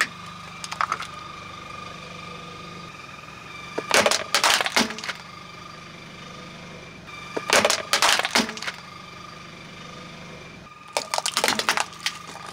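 Plastic toys cracking and snapping as a car tyre rolls over and crushes them, in bursts of sharp cracks and pops about every three to four seconds, over a faint steady hum.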